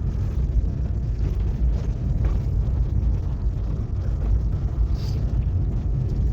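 Car driving along a snow-covered road, heard from inside the cabin: a steady low rumble of engine and tyres.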